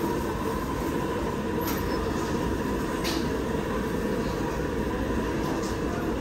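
Steady roar of LPG gas stove burners under pots of boiling water, with a couple of light clinks.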